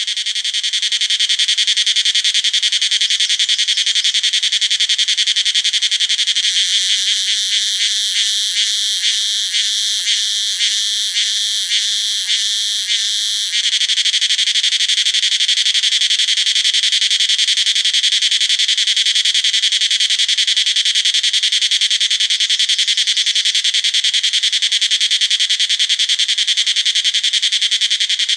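Cicada buzzing loudly in a continuous high-pitched drone. For a few seconds in the middle the buzz pulses about twice a second, then it switches abruptly back to the steady drone.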